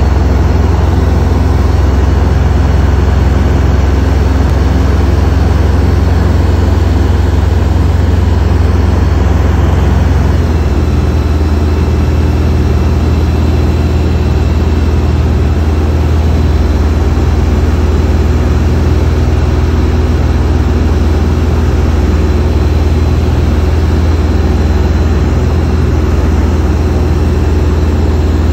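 Steady cabin noise of an aircraft in flight: a loud low rumble of the engines under the rush of airflow. The low tone shifts slightly about ten seconds in.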